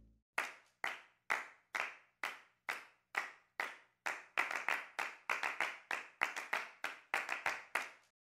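Hand clapping: sharp single claps with short echoing tails, slow and even at about two a second, then quicker and overlapping from about halfway, ending abruptly near the end.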